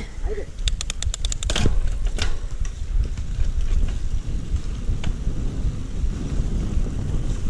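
Mountain bike being ridden: a short run of rapid, evenly spaced clicks about a second in, then a steady low rumble of wind and rolling noise.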